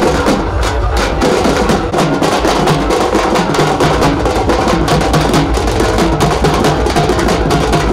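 Loud music carried by fast, dense drumming with many rapid strokes.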